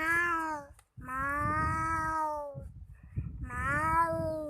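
Cat meowing: three long, drawn-out meows, each rising and then falling in pitch.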